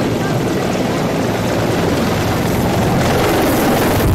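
Mi-24 attack helicopters flying low and close overhead: loud, steady rotor and turbine noise that grows louder as one passes near.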